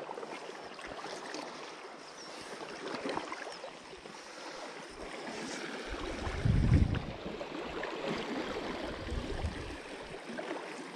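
Wind blowing across the microphone in the open, a steady rushing noise with a stronger gust rumbling about six to seven seconds in.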